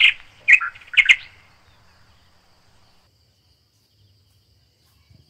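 A bird chirping: about four short, sharp chirps in quick succession in the first second or so.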